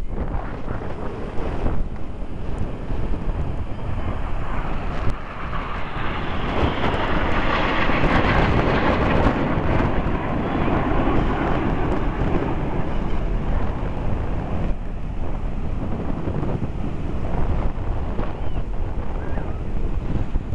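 BAE Hawk T1 jets of a formation display team flying overhead: the jet noise swells about five seconds in, is loudest near the middle, and fades a few seconds later. Strong wind buffets the microphone throughout.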